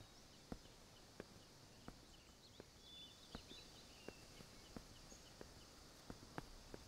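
Faint footsteps of a person walking on a paved path, about one step every 0.7 s, over quiet outdoor ambience with a few faint bird chirps.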